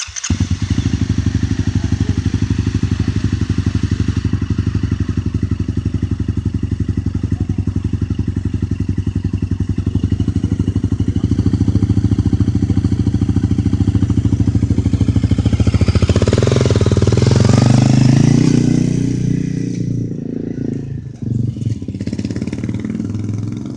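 Small dual-sport motorcycle engine idling with an even, rapid putter just after starting. About sixteen seconds in it revs up as the bike pulls away, then fades and dulls as it rides off.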